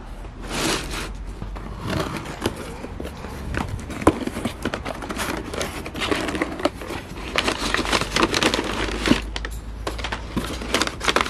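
Packing tape on a cardboard box slit with a hobby knife and the flaps pulled open, then crumpled packing paper crinkling and rustling as it is lifted out. A few sharp clicks stand out among the rustling.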